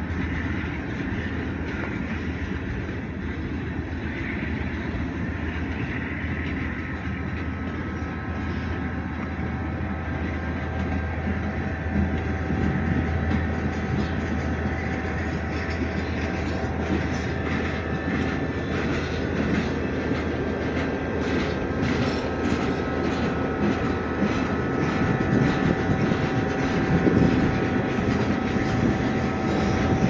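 Freight train cars rolling past close by: a steady rumble of steel wheels on rail, with thin steady whining tones joining in and wheel clicks over rail joints growing more frequent in the second half, getting louder near the end.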